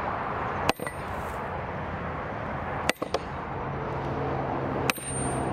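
Three hard hammer blows clang on a Harbor Freight 55 lb cast-iron anvil with a welded-on A2 steel top plate, about two seconds apart, each with a short high metallic ring; the middle blow is followed by a quick second knock. A low steady vehicle engine hum comes in after the middle.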